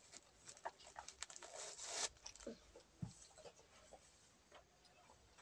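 Facial tissue being pulled from a soft plastic pop-up tissue pack and crumpled, soft rustling and crinkling that builds to a denser rustle and stops abruptly about two seconds in, followed by a few faint small rustles.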